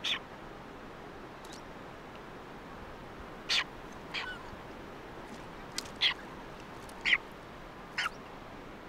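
Blue-footed boobies calling: about six short, sharp calls at irregular intervals over a steady faint hiss.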